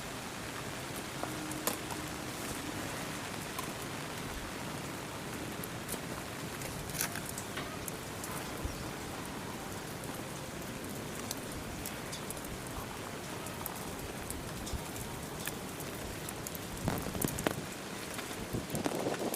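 Steady rain, an even hiss with scattered sharp drop ticks. Louder rustling comes in near the end.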